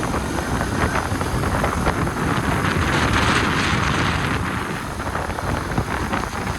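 Honda CD 70's small single-cylinder four-stroke engine running under way, mixed with wind buffeting the microphone and the hiss of rain and wet road. The hiss swells for a couple of seconds about midway.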